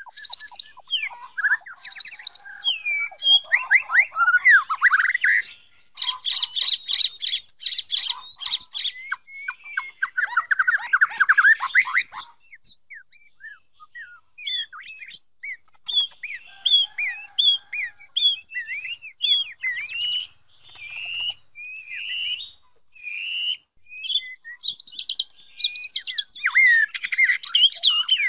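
White-rumped shama singing a varied run of whistled phrases. A harsh rapid rattle comes about six seconds in, then fast sweeping notes. The song goes softer and more spaced out midway and grows loud again near the end.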